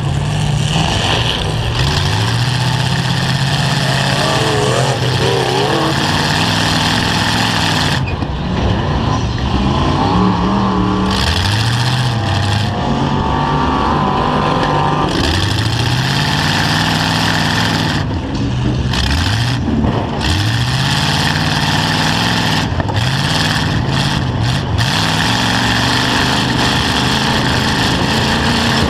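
Engines of several demolition-derby pickup trucks revving up and down over and over as they drive and ram, their pitch repeatedly rising and falling, with higher whines at times.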